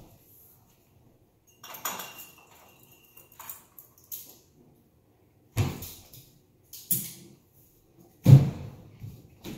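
Scattered knocks and clatter of a kitchen cabinet door and the things inside it as someone rummages in an upper cabinet, then several thumps of climbing about on the counter, the loudest near the end.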